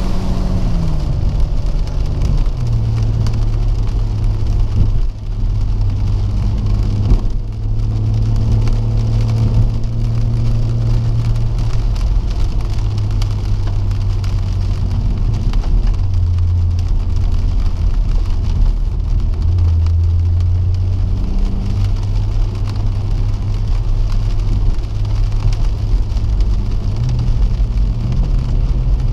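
BMW M140i xDrive's 3.0-litre turbocharged straight-six heard from inside the cabin, pulling steadily at moderate revs, over a steady hiss of tyres on wet tarmac. The engine note drops in pitch a few times and rises again near the end.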